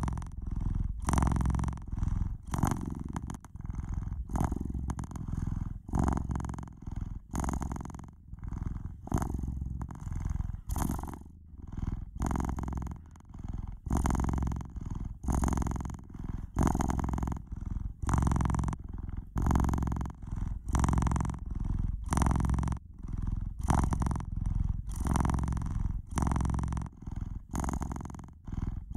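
Domestic cat purring close to the microphone: a low rumble that swells and fades with each in and out breath, about one swell a second.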